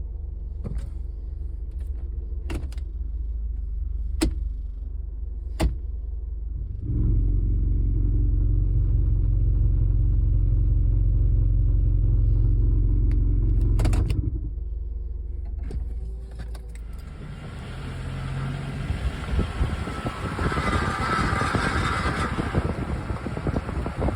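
2003 Honda Element's four-cylinder engine and exhaust running, with single sharp knocks every second or two. About seven seconds in the drone gets louder and deeper for several seconds; near the end a loud, rough, noisy stretch takes over. The noises come from a loose exhaust manifold heat shield and a broken-up catalytic converter rattling inside the muffler.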